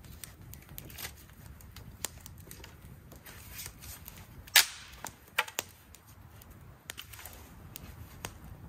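Dry wood snapping: one loud, sharp crack about halfway through, then two smaller cracks, as a dead branch is broken by hand for a campfire. Small crackles and pops from the fire run throughout.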